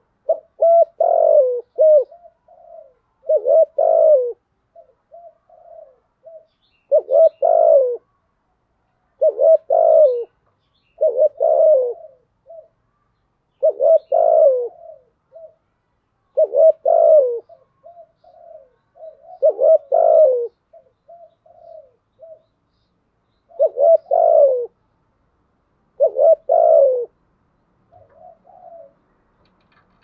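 Spotted dove cooing: about ten loud phrases of low coos, each lasting about a second and coming every two to three seconds, with softer short coos between them.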